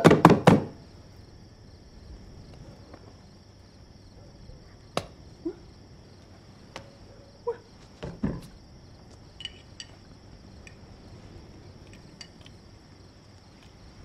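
Quiet dinner-table sounds under a steady high chirr of crickets: a quick run of loud sharp knocks at the start, then scattered soft clicks and knocks of hands and cutlery as the family signs.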